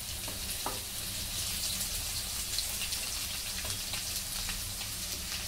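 Chopped garlic and green chillies sizzling in hot oil in a heavy-bottomed kadhai: a steady frying hiss with small crackles and pops.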